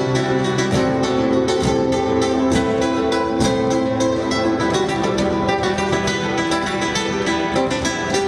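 Solo acoustic guitar played live in an improvisation: a dense run of quickly plucked notes and strums over ringing pitched notes.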